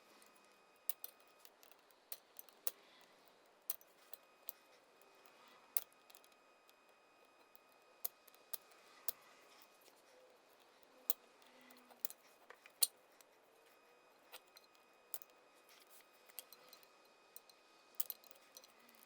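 Irregular sharp metallic clicks and ticks of snap ring pliers and a steel snap ring working against the splined output shaft of a Dana 18 transfer case, as the ring is spread and worked toward its groove.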